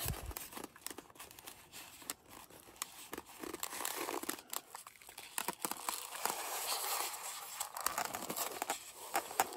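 Packaging crinkling and foam rubbing in scattered small crackles and clicks as a diecast model truck is wiggled out of a tight Styrofoam box insert.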